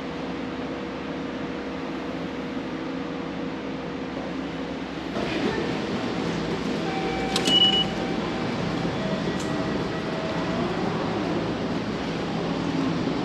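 A train running into the station overhead: a steady ventilation hum gives way about five seconds in to a louder rumble, with a short sharp squeal halfway through and drawn-out squealing tones after it, typical of brakes.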